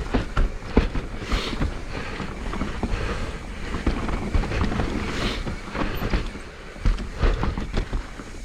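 Mountain bike descending a rough dirt trail: tyre noise with frequent knocks and rattles over bumps, and wind on the microphone.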